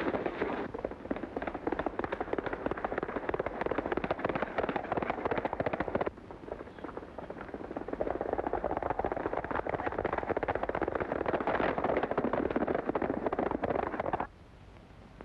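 Horses' hooves clattering at a gallop, a fast, dense clatter that breaks off for a moment about six seconds in and stops abruptly near the end.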